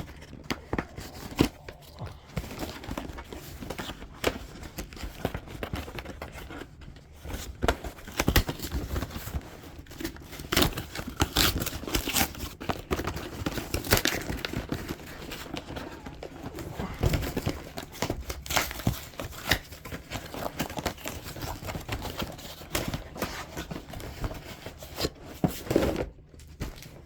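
Cardboard and plastic packaging of a portable DVD player being opened by hand: continuous crinkling, rustling and tearing with many irregular small knocks and clicks.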